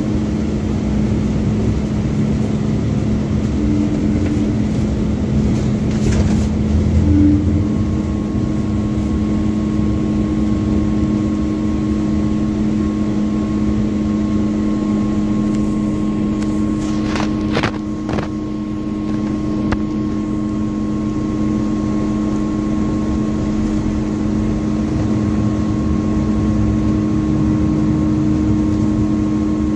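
MAZ-205 articulated city bus running between stops, heard from inside: a steady engine and drivetrain drone with a constant low hum. A faint higher whine joins about a quarter of the way in, and a few short knocks come about two-thirds of the way through.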